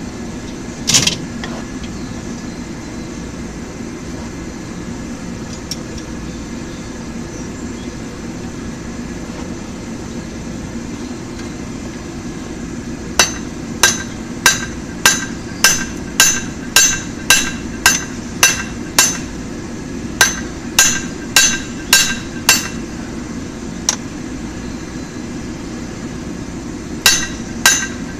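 Blacksmith's hand hammer striking hot 5/8-inch round mild steel on an anvil, forging the boss of a tong blank. A run of about twenty ringing blows comes at roughly two a second from about halfway in, pauses briefly, then resumes near the end. Earlier there is a single clank about a second in, all over a steady low hum.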